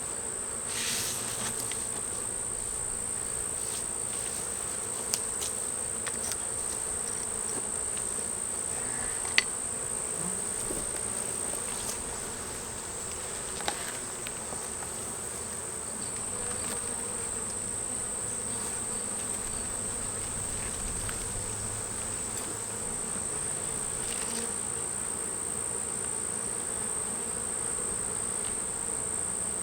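Buckfast honeybees buzzing steadily around an open hive, with a constant high-pitched insect trill over it. A few sharp clicks from hive parts being handled, the loudest about nine seconds in.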